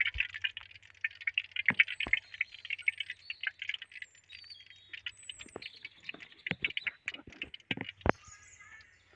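Cooking oil crackling and spitting as it heats in a pan over a wood fire, a crackle that thins out toward the end. In the cook's own rule, the noise means the oil is not yet hot enough for the sugar. A few sharp pops come from the burning wood, the loudest near the end.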